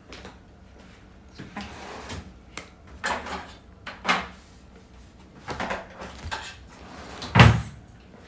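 Scissors snipping and scraping through the top of a small cardboard box, with rustling as the box is handled. There is a louder thump about seven seconds in.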